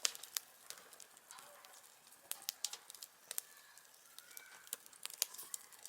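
Oak firewood burning in a campfire, crackling with irregular sharp pops and snaps.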